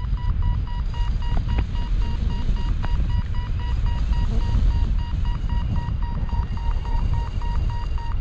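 Paragliding variometer beeping rapidly at a steady pitch, several beeps a second, its climb tone in rising air. Heavy wind noise on the microphone rumbles underneath.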